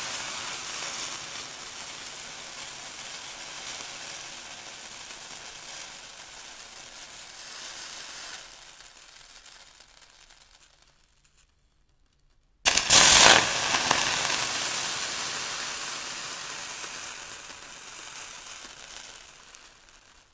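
Water flashing to steam on intense heat: a hissing fizz that slowly dies away over about ten seconds and stops. A second or so later comes a second sudden, loud burst of the same hiss, which fades out again.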